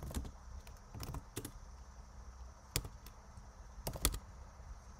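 Computer keyboard keystrokes typing a terminal command: a few separate taps and short runs spread out, with pauses of a second or more between them.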